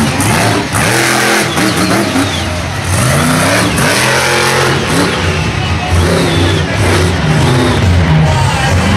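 Monster truck engine revving hard, its pitch climbing and falling again and again in quick bursts of throttle.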